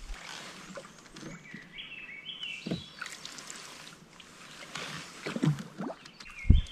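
Canoe paddle strokes in calm water: soft swishes and small drips and gurgles with each stroke. Behind them a songbird sings a short run of clear whistled notes about two seconds in and again near the end.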